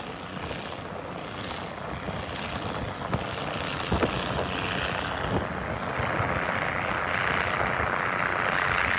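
Hitachi RHN diesel railcar heard from on board, its engine droning steadily and growing louder as the train starts to climb a grade. A few short knocks come through near the middle.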